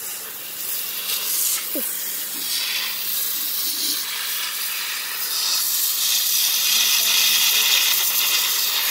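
Pressure-washer water jet hissing as it sprays mud off the steel cage wheel and frame of a walk-behind tractor. The hiss is steady and gets louder about five seconds in.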